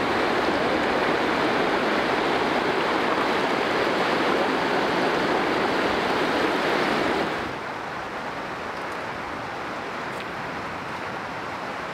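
Whitewater rapids rushing steadily over rocks. About seven seconds in, the sound drops to a softer, quieter flow of river water.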